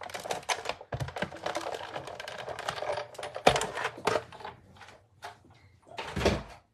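Hand-cranked die-cutting machine running a die-and-plate sandwich through its rollers, with a quick clicking rattle while the handle turns. A sharp knock follows about halfway through as the plates come free, and a dull thump comes near the end.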